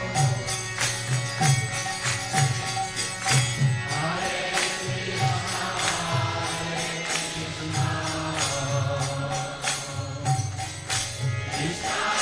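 Background devotional chant music: voices singing over a steady rhythm of sharp percussion strikes.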